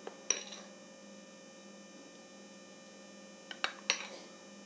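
Metal spoon clinking against a glass bowl: one clink a third of a second in and three more close together near the end, each with a short ring, over a steady faint electrical hum.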